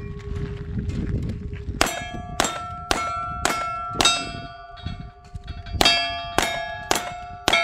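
Revolver shots hitting steel plate targets, each shot followed by the plate's ringing clang. Five shots come about half a second apart starting about two seconds in, then after a short pause four more at the same pace near the end.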